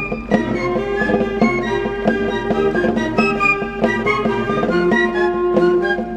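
Military marching band playing a march as it marches. A bass drum and cymbals keep a steady beat of about two a second under brass, saxophones and flutes carrying the tune.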